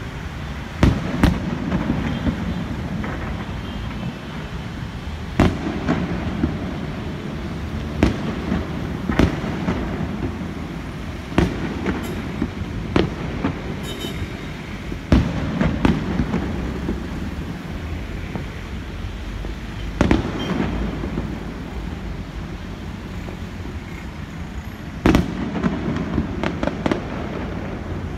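Aerial fireworks display: sharp booms of shells bursting at irregular intervals, one to five seconds apart, some followed by clusters of crackling, over a steady low rumble.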